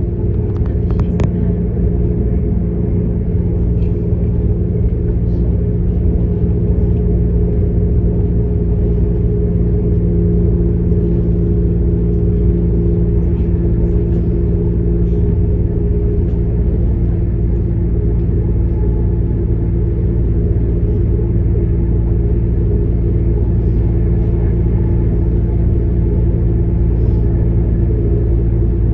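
Inside a Class 195 CAF Civity diesel multiple unit on the move: the underfloor diesel engine and ZF Ecolife gearbox running at a steady note over a low rumble from the wheels and track, with a slight shift in pitch about ten seconds in.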